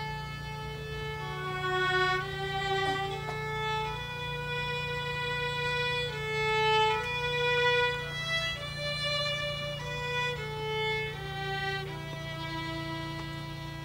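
Solo violin playing a slow melody, one bowed note at a time, most notes held for a second or more. A steady low hum runs underneath.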